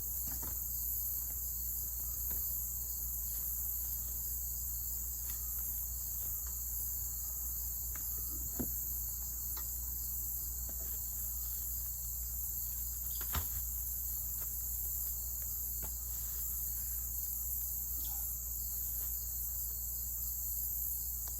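Steady high-pitched insect chorus, like crickets, over a low steady hum, with two short knocks about 8 and 13 seconds in.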